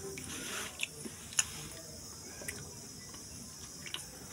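Pressure cooker heating on a gas burner: a steady hiss with a few scattered sharp ticks.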